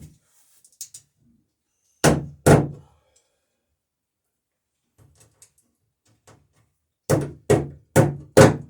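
Hammer blows on wood: two strikes about two seconds in, then four evenly spaced strikes near the end, about two a second.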